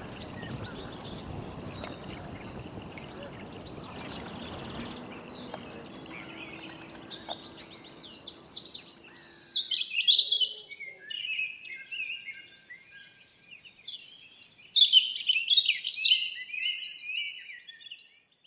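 Outdoor nature ambience: birds singing over a steady background hiss. About ten seconds in the hiss falls away and the birdsong becomes louder and clearer, with several birds calling in quick, chirping phrases.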